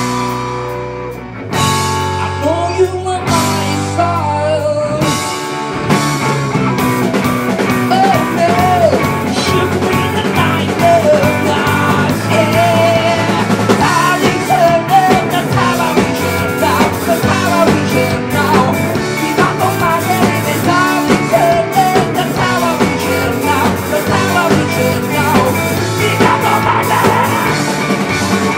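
A rock band playing live: electric guitars and a drum kit, with a singer's voice coming in about two seconds in and carrying on over the band.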